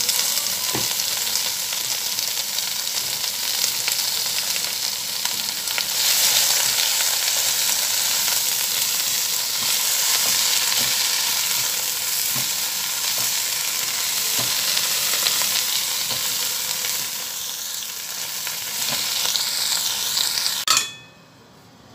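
Baby bok choy (pechay) sizzling as it stir-fries in hot oil in a pan, with a spatula stirring and turning the leaves. The sizzle cuts off suddenly near the end.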